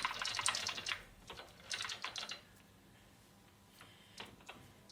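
Lathe parting tool cutting through steel round stock to part off a washer: a rapid ticking that comes in two spells and stops about two and a half seconds in. A few light single clicks follow near the end.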